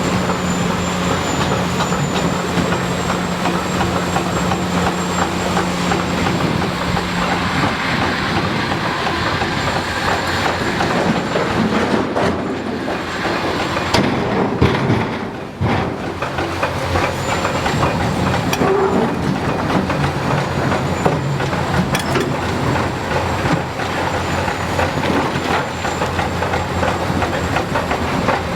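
Hitachi 330 hydraulic excavator working in rock: the diesel engine runs steadily under a constant clatter of metallic knocks and the scrape of rock on steel. A steady low hum fades out about a third of the way in.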